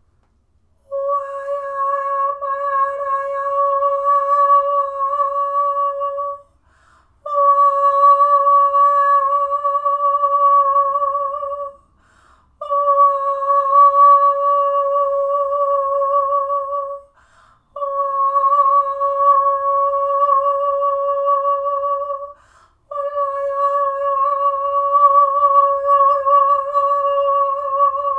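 A woman's voice sings wordless vocal tones: five long held notes on the same high pitch, each about five seconds long with a slight vibrato, split by short pauses for breath.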